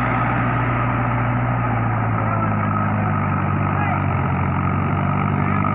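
Mahindra 575 DI tractor's four-cylinder diesel engine running steadily under load while working a rotavator through flooded paddy mud, its note shifting slightly about two seconds in.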